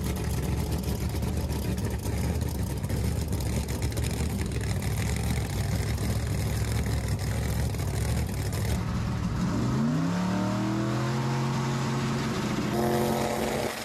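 Turbocharged drag car's engine idling with a low rumble, then revving up about two-thirds of the way in and holding steady at raised revs.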